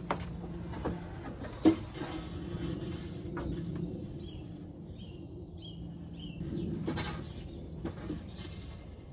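Outdoor background noise with a steady low hum and a few sharp knocks, the loudest about two seconds in. A small bird chirps a short series of quick high notes about halfway through.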